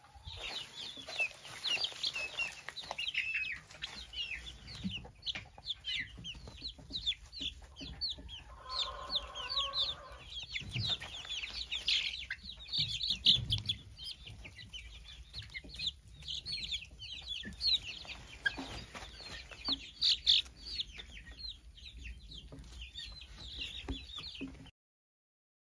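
A brood of three-week-old chicks peeping: a steady stream of short, high, falling peeps from many birds, with a brief lower, wavering sound about nine seconds in. It cuts off suddenly near the end.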